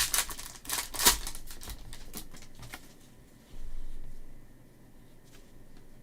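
Hands working a foil pack of trading cards and sliding the cards out and through the fingers: a quick run of rustles and clicks in the first few seconds, then quieter, fainter handling.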